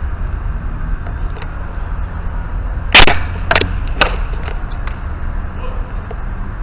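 Airsoft guns firing: a loud sharp crack about three seconds in, two more at roughly half-second intervals, then a few fainter clicks, over a steady low rumble.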